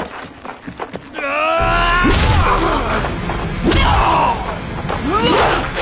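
A horse whinnies once, about a second in. Then comes a deep rumble, with a person's groans and cries over it.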